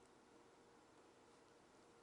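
Near silence: room tone with a faint steady hum and one or two faint small clicks.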